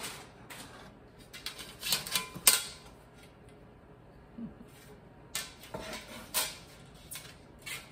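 Two perforated aluminum canning racks for an All American pressure canner clinking and clattering as they are handled. The clinks are loudest about two and a half seconds in, go quiet for a couple of seconds, then come back as lighter clicks and rustling near the end.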